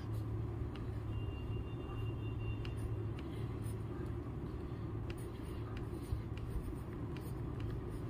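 Steady low hum and rumble of background machinery or traffic, with faint light scratches and taps of a pencil drawing on paper.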